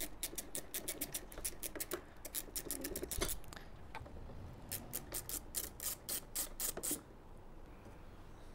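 Small ratchet with a 4 mm hex bit clicking in quick runs, about five clicks a second, as it undoes the brake pad retaining bolts on a go-kart brake caliper, with a single knock about three seconds in. The clicking stops about seven seconds in.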